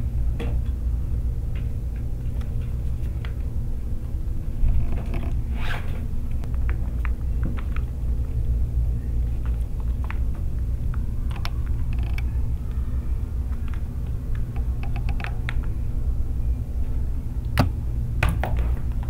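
Kittens playing on carpet, with scattered short scratches, taps and rustles as paws strike and drag a small baby shoe. A steady low rumble runs underneath.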